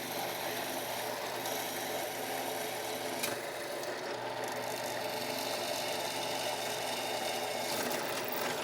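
Electric drill running steadily, boring holes through flattened steel rebar.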